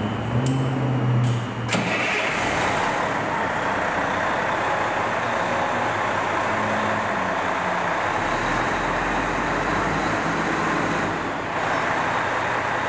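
Fire engine's diesel engine running steadily at idle while the truck is held in drive against its spring parking brakes, a check that the rear spring brake canisters hold. A few light clicks come in the first second or two.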